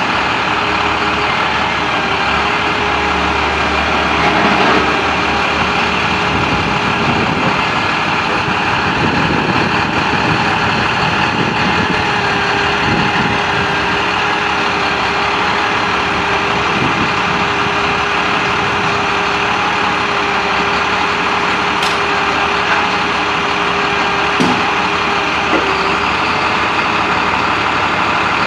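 Utility boom truck's engine running at a steady idle, an even, continuous drone with a steady hum over it.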